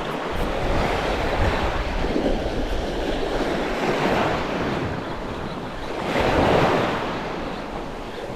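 Ocean surf washing around, swelling and easing every couple of seconds, with wind blowing on the microphone; the biggest surge comes about six seconds in.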